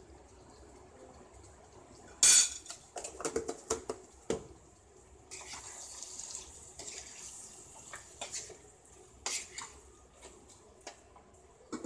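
Spoon scraping and knocking against a cooking pan as a thick chicken and taro curry is stirred to mix in salt. A loud knock comes about two seconds in, then a quick run of clinks, a few seconds of wet scraping, and a few more knocks near the end.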